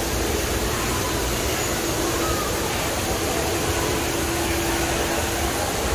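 Steady rushing background noise of a busy indoor exhibit hall, with a faint steady hum and faint crowd voices.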